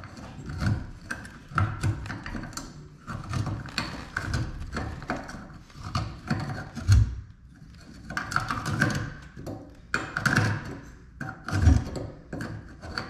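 A hand tool scraping and tapping on the cut ends of copper supply pipes, in irregular strokes, as grinder burrs are cleaned off. Two louder low knocks come about seven seconds in and near the end.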